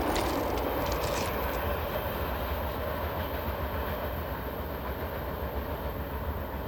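Freight train rolling past on the rails, a steady rumble with a few sharp wheel clicks in the first second, slowly getting quieter.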